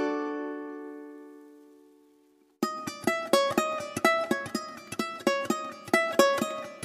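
Background music on a plucked string instrument. A held chord rings out and fades to silence, then about two and a half seconds in a new tune of quick plucked notes begins.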